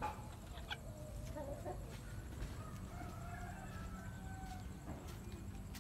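Chickens giving soft, wavering calls and clucks, with a few short clicks over a steady low rumble.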